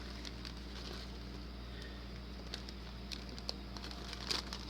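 Light, scattered crackles and ticks of dry radish seed pods being handled and put into a plastic bag.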